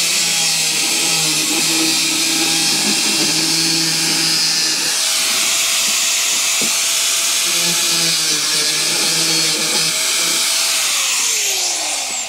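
Corded angle grinder cutting through a plastic chemical container: a loud, steady whine whose pitch shifts as the disc bites and eases. Near the end it is switched off and spins down with a falling whine.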